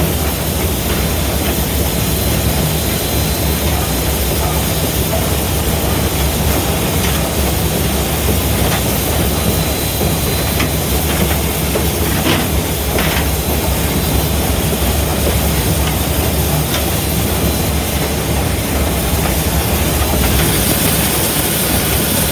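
Southern Railway 4501, a 2-8-0 steam locomotive, under way, heard from inside its cab: a steady rumble of the engine and wheels on the rails with steam hissing. Near the end the hiss turns brighter and harsher.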